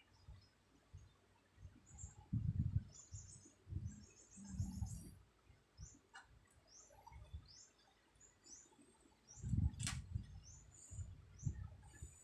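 Bird chirping repeatedly in short, quick falling chirps, over a few low rumbling breaths of a sleeping person snoring, the loudest about two seconds in and just before ten seconds. A single sharp click comes just before the ten-second mark.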